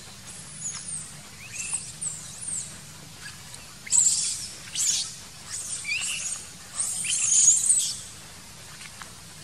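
Macaques giving a run of shrill squeals and chirps that sweep up and down in pitch. The loudest come about four seconds in, with a dense cluster between seven and eight seconds.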